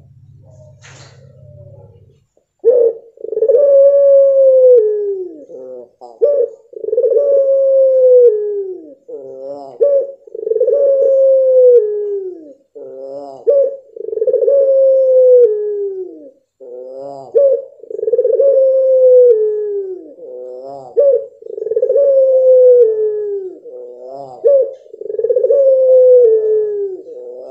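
Caged puter pelung, a long-voiced variety of the domestic Barbary (ringneck) dove, calling again and again. Each call is a long, falling, cooing note that ends in a short quavering trill, and it repeats about every two seconds from a little over two seconds in.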